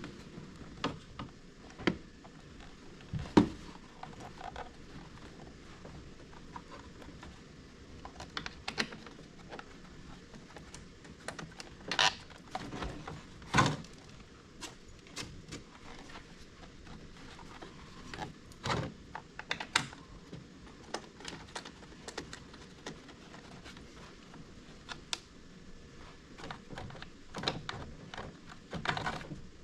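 Irregular clicks, taps and knocks of hand tools and parts being handled while the blower motor and its cover are refitted, with a sharper knock a few seconds in.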